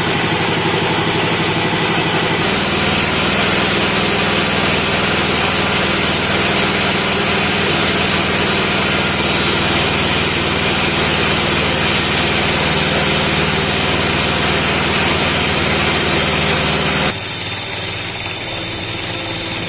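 A small motor running steadily, its tone shifting slightly about two seconds in and its level dropping near the end.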